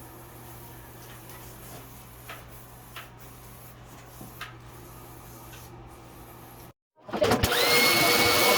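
Faint steady hum with a few light clicks. Near the end it cuts off briefly, then an electric high-pressure washer's motor starts, spins up fast and runs loud and steady with a whine.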